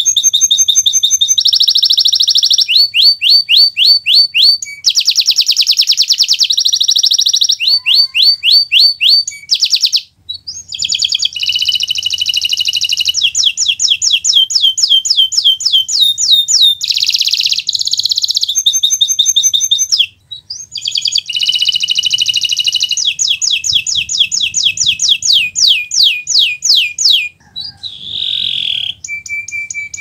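Domestic canary singing a long, loud song of fast trills and rapidly repeated high notes, with brief pauses about ten and twenty seconds in.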